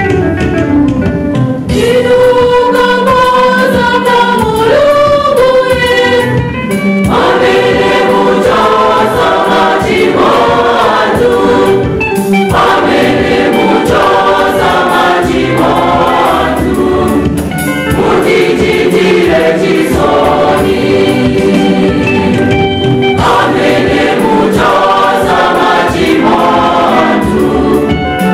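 Church choir singing a gospel-style hymn with electronic keyboard and electric guitar accompaniment.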